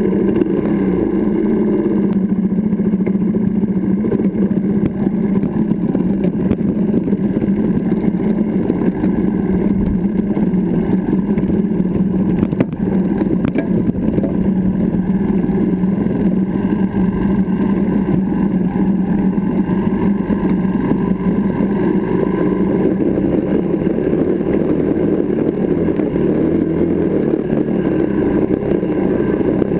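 Benelli TNT 125's single-cylinder four-stroke engine running at a steady, even pitch while the bike is ridden along a rough stony track, with one sharp knock about twelve seconds in.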